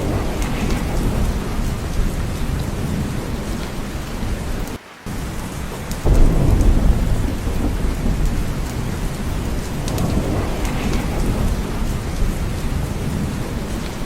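Steady heavy rain with deep rolling thunder. The sound drops out for a split second just before the five-second mark, then a loud low rumble of thunder swells about six seconds in.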